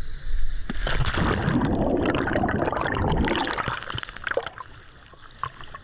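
Seawater splashing and gurgling as scuba divers jump in from a dive boat, a loud rush of water for about four seconds that dies down to faint bubbling and small pops.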